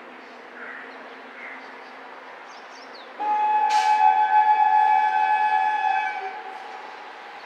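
Electric freight locomotive's horn sounding one long blast of about three seconds, a steady chord of several tones, from about three seconds in. Under it is the low rumble of the approaching freight train.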